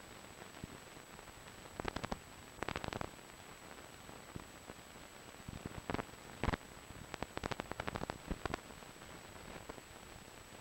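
Faint hiss of an old film soundtrack with a thin high steady whine, broken by several short runs of crackling and popping.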